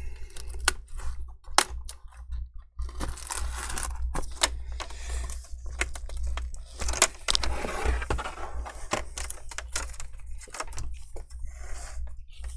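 Plastic screen bezel of an MSI GL63 9SDK laptop being pried and pulled off with a metal pry tool. It gives many sharp clicks as it comes loose, with a few short scratchy stretches of the tool cutting through and the bezel peeling off the double-sided adhesive tape.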